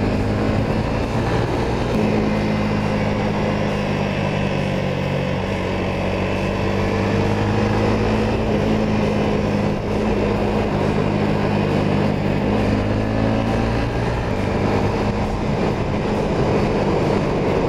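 Yamaha Sniper 150 motorcycle's single-cylinder four-stroke engine running steadily while riding, with wind rushing past. The engine note shifts slightly in pitch a few times.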